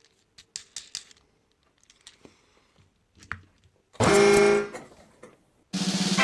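A few faint clicks and taps, then about four seconds in a short, loud horn-like tone. Near the end a second pitched sound starts and leads into music.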